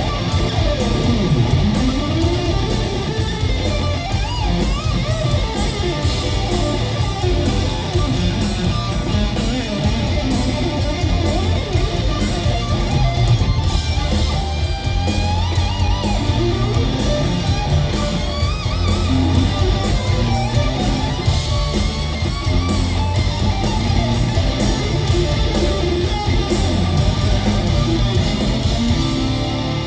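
Live hard-rock band playing at full volume: a lead electric guitar plays bending, sliding notes over bass and drums, heard from within an arena crowd.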